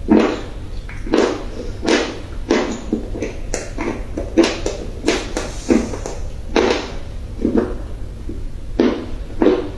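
Dry clay crunching: a steady series of crisp crunches, about one or two a second.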